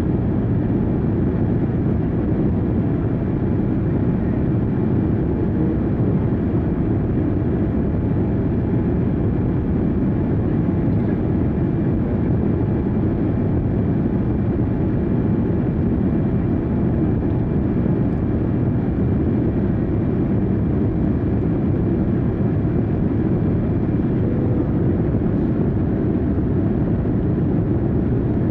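Steady, unchanging low roar of engines heard from inside a moving vehicle, with no breaks or changes.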